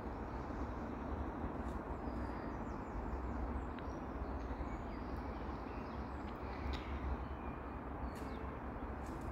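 Steady outdoor background noise with a low rumble, and a few faint, short, high bird chirps scattered through it.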